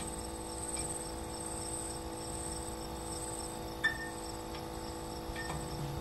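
Crickets chirping in a fast, even pulsing trill over a steady low drone of several held tones, with a short sharp blip about four seconds in and another fainter one near the end.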